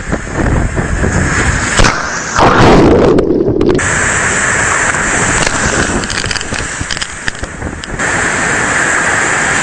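Hurricane wind buffeting the microphone, with waves crashing. The sound changes abruptly at several cuts between clips.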